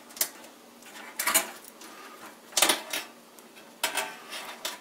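Sharp plastic clicks and rattles of power supply cables and connectors being handled inside a computer case, in four short bursts.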